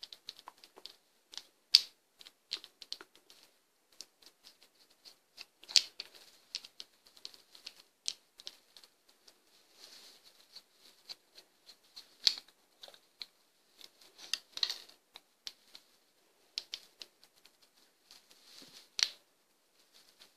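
Irregular small clicks, taps and scrapes of a small screwdriver and plastic housing parts as a camera lens module is unscrewed and taken apart, with a few sharper clicks standing out.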